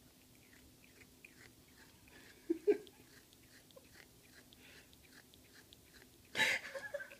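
Soft, breathy sniffing close to the microphone, repeating every fraction of a second, with two short sounds about two and a half seconds in and a louder breathy puff near the end.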